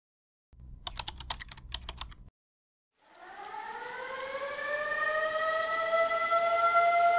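Edited soundtrack intro: a quick run of about a dozen sharp clicks over a low hum, then a siren-like tone that rises in pitch and swells louder before levelling off as the music begins.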